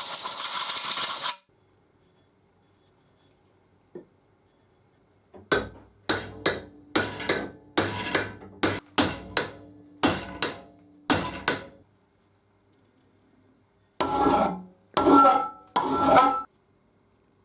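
A loud, steady power-tool noise cuts off about a second in. After a pause, about a dozen short hand strokes of an abrasive tool on the shear's steel parts follow, roughly two a second. Three longer strokes come near the end, with a slight ringing.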